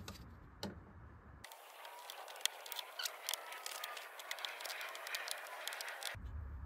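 Small plastic clicks, ticks and rustling from hands fitting a plastic trim cover into a car's front bumper. From about a second and a half in the sound turns thin, with a dense run of tiny crackles.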